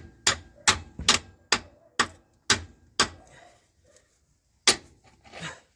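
Sharp metallic clicks or taps, about two a second, slowing and stopping about three seconds in, then one more click near the end. They come from hand work on the dismantled tractor engine.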